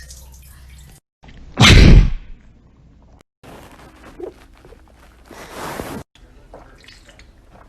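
A loud, rasping release of gas from the body, lasting about half a second, about two seconds in. A quieter breathy rush of air follows nearer the end.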